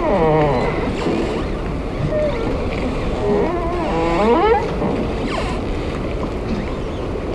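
Harbour water ambience with wind on the microphone, broken by a few wavering pitched calls: one falling cry in the first second and a longer wavering one from about two to nearly five seconds in.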